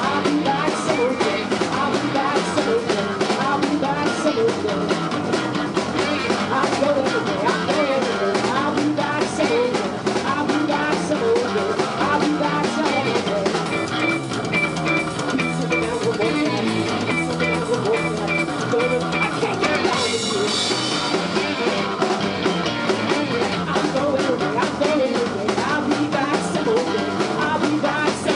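Live rock band playing a song, with drums keeping a steady beat under guitar. A short high note repeats several times in the middle.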